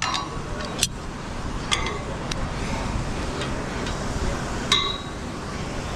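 Steel lanyard hook and clip hardware clinking against the metal truss tower as the climber handles it, four sharp clinks with the loudest near the end, over steady low background noise.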